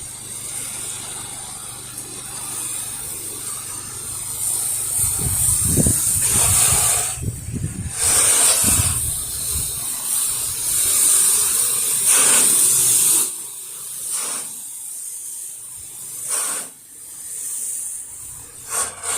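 Pressure-washer spray hissing as it hits the house siding, running in several bursts with short breaks, over a low machine hum that fades out about two-thirds of the way through.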